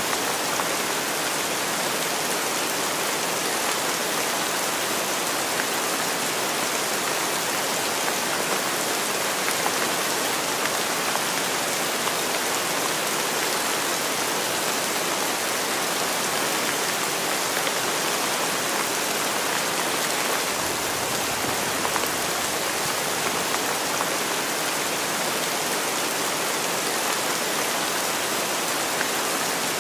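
Steady rain falling over open fields and trees: an even, unbroken hiss of drops.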